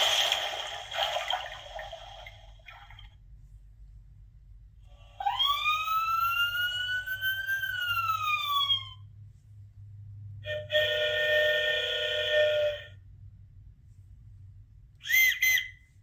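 Electronic sound effects from a children's push-button sound book, played through its small built-in speaker one button at a time: a noisy burst at the start, a police-siren wail that rises and then falls about five seconds in, a steady vehicle horn around eleven seconds, and a short two-note whistle toot near the end.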